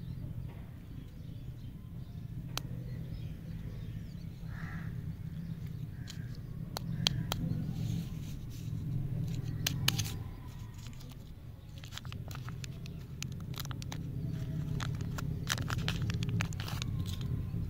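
Paper and foil candy wrappers crinkling, crackling and tearing as they are peeled open by hand, in many sharp irregular clicks over a steady low rumble.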